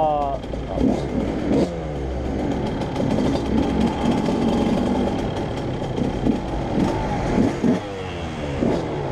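KTM 125 EXC two-stroke single-cylinder engine revving, its pitch rising and falling repeatedly, with sharp drops in revs about a second and a half in and again near the end.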